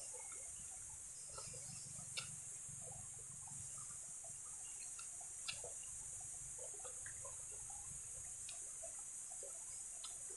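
Faint eating sounds of a person chewing and eating rice and chicken by hand: small wet mouth clicks and smacks with a few sharper clicks, over a steady high-pitched hiss.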